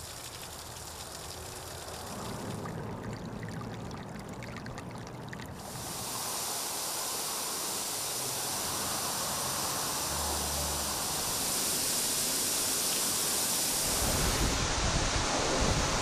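Snowmelt running down rock, then a waterfall pouring and splashing into a pool, a steady rush of water that grows louder about five or six seconds in. A deep rumble joins near the end.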